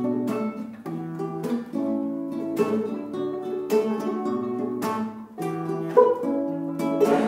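A classical guitar and a small mandolin-type instrument playing a plucked-string duet, a few picked notes a second.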